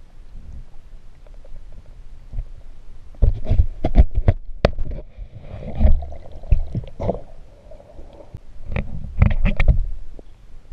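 Muffled underwater sound through a camera's waterproof housing: low rumbling and gurgling water, with two clusters of sharp knocks and clicks, about three seconds in and again near the end.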